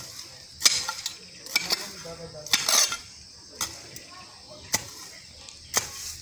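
A small pronged metal hand hoe chopping into soil, striking about once a second.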